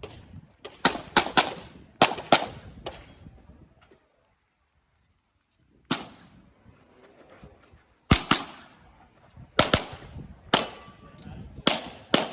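Handgun shots fired in quick pairs and short strings during a practical-shooting stage, each with a short echo, broken by about two seconds of dead silence in the middle.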